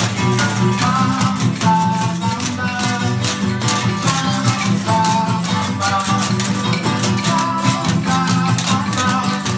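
Acoustic guitar strummed with a steady beat, with a dense shaking of hand rattles and shakers over it and a higher melody of short held notes.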